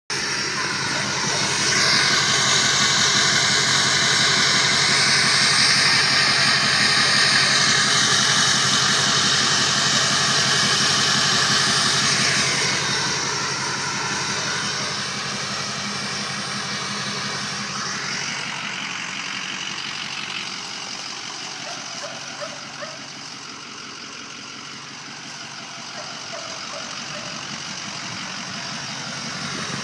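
Ford F-250's 6.0 Powerstroke V8 turbo-diesel idling steadily through a straight-piped exhaust, with a strong hiss over the low engine note. It is louder and hissier through the first twelve seconds or so, then quieter.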